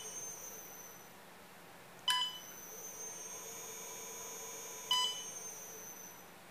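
Siemens KTP900 touch panel giving a short electronic beep on each button press, three times. A faint whine and hum from the inverter-driven motor starts at the second beep and fades out about a second after the third as the motor is stopped.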